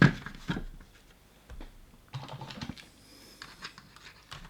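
Irregular small clicks and knocks of hands working inside an opened multimeter's plastic case, prising a cartridge fuse out of its clips to reach a screw underneath.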